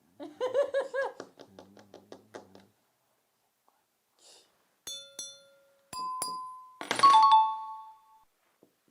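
Played-back sound effects: a short pitched warbling sequence, then a run of electronic dings and beeps with held steady tones, the loudest about seven seconds in.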